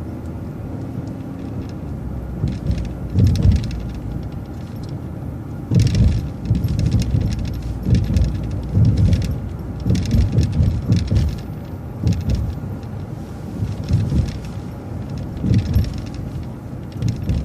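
City transit bus driving along a road, heard from inside: a low running and road rumble with frequent irregular rattles and knocks.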